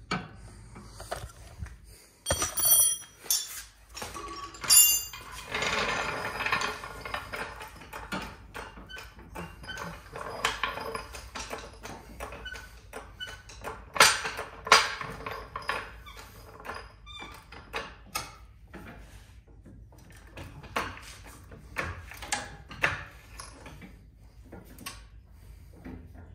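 Metal clinks, knocks and scrapes of hand tools and suspension parts as a sway bar end link is pushed into place and fastened, with bright metallic rings about two and a half and five seconds in.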